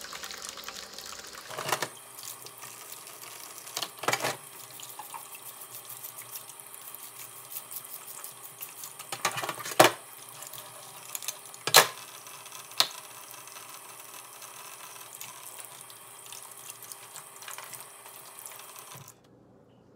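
Kitchen tap running steadily into a stainless-steel sink while abalone are cleaned under it, with a few sharp clacks of the shells and a spoon against each other and the metal sink. The running water stops abruptly about a second before the end.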